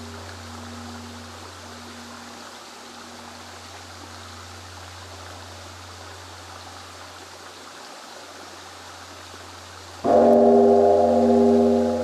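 A large bronze Buddhist temple bell is struck once about ten seconds in and rings loudly with a slow pulsing throb. Before that, the ringing of the previous strike fades away over a steady low hum.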